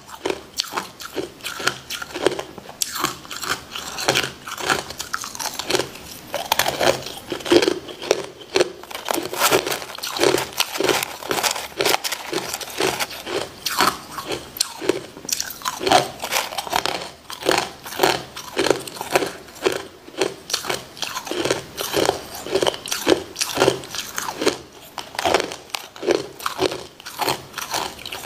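Crushed clear ice being bitten and chewed. The crunches are rapid and irregular, several a second, and keep going without a break.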